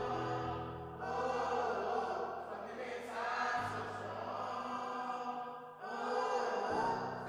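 A group of voices chanting together in unison in short repeated phrases, over steady low bass notes that change pitch twice.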